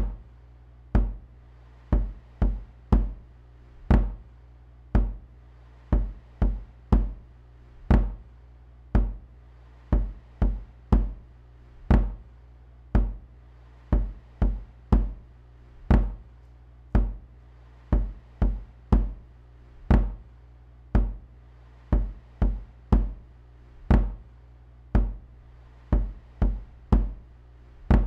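A looped electronic beat played through studio monitors: deep, knock-like drum hits about once a second with quicker extra hits between them, the pattern repeating about every four seconds, over a steady low bass drone.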